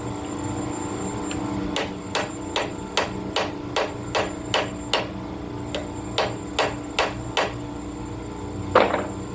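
Hand hammer striking repeatedly in a steady rhythm, about fourteen blows at two or three a second, then a pause and one heavier blow near the end, over a steady hum.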